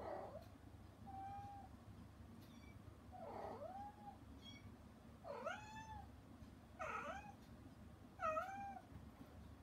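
A mother cat calling to her kittens through a closed door: a run of short meows, each rising then falling in pitch, about one a second, some soft and some louder.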